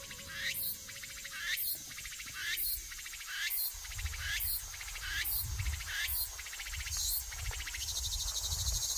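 Insects calling: a regular series of high, rising chirps, about one a second, over a low rumble that comes in about four seconds in.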